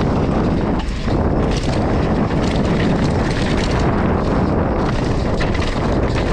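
Wind buffeting the microphone on a mountain bike being ridden over dirt, with scattered short rattles and knocks from the bike.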